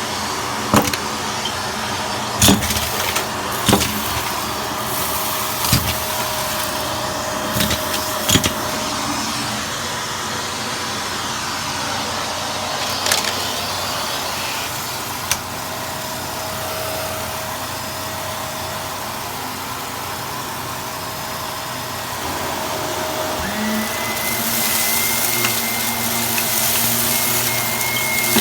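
Vacuum cleaner running steadily while sucking up crunchy debris, with scattered sharp cracks and pops over the first fifteen seconds. A little before the end a new, higher whine joins the motor note and the sound grows louder.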